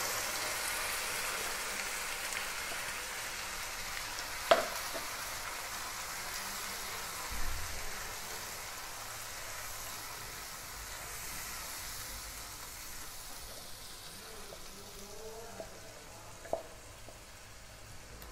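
Wet onion-tomato paste sizzling as it hits hot oil in a non-stick pan and is stirred with a spatula, the sizzle slowly dying down. A sharp knock about four and a half seconds in, and fainter ones later.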